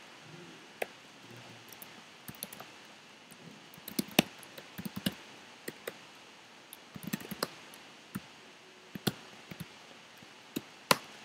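Typing on a computer keyboard: irregular keystrokes, some in quick runs, others spaced apart, over faint room tone.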